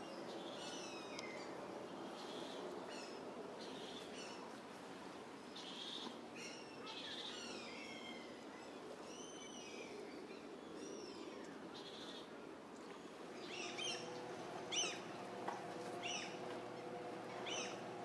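Birds chirping and calling, many short high sweeping calls in a row. About two-thirds of the way in a steady low hum sets in beneath them and the calls grow sharper and louder.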